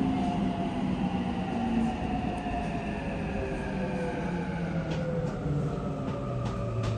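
Subway train running through a tunnel, heard from inside the car: a rumble under a motor whine that slowly falls in pitch as the train slows for the next station, with a couple of clicks near the end.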